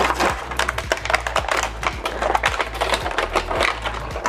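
Clear plastic packaging crinkling and crackling in quick irregular clicks as an action figure is worked out of its blister tray, with background music underneath.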